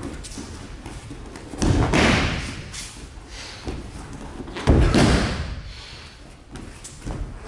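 Heavy thumps of a body hitting tatami mats during aikido throws and breakfalls, with a rustle of gi and hakama. The two loudest come about two seconds in and about five seconds in.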